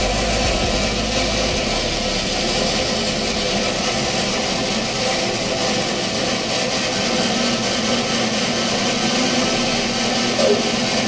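Band saw running steadily, its blade ripping along a wooden board as it is fed through.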